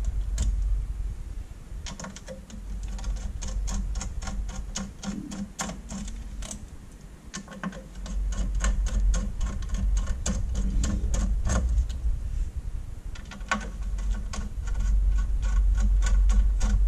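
Runs of small, quick metallic clicks and ticks from a screwdriver backing screws out of the metal frame that holds an LCD screen, mixed with light handling knocks, over a low steady hum.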